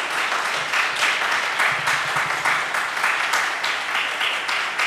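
A congregation applauding: a steady round of many hands clapping.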